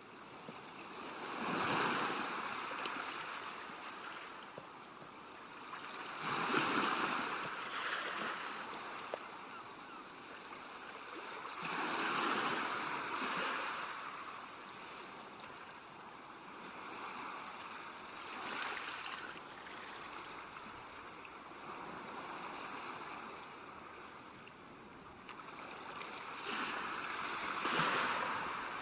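Ocean waves breaking on a shore in repeated surges, about every five to six seconds, with the surf's wash continuing between them.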